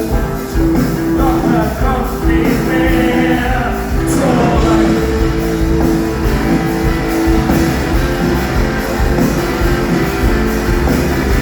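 Rock band playing live, with a sung vocal over electric guitars and drums at full volume.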